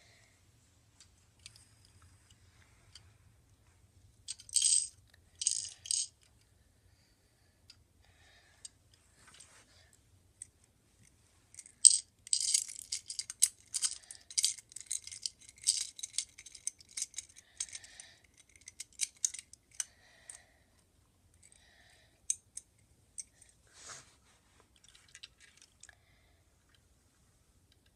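Plastic Lego pieces of a garbage truck set clicking and rattling as they are handled. There are two short rattles about four and a half and six seconds in, then a run of rapid clicks and rattles from about twelve to twenty seconds as a bin is worked against the truck's front, trailing off into scattered clicks.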